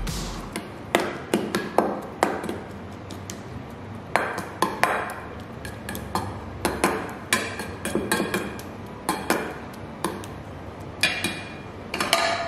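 Metal spoon clinking and scraping against a stainless steel bowl while stirring sticky rice, in many irregular sharp clicks with a brief metallic ring.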